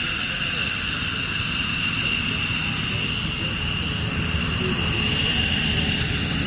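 F-15 Eagle jet engines running steadily, a constant high-pitched whine in several tones over a low rumble, holding level without spooling up or down.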